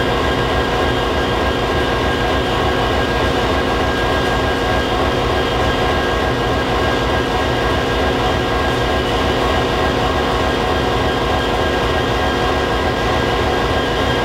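EMD SD60E diesel locomotive standing at idle, its V16 two-stroke prime mover running with a steady, even drone and a throbbing low end.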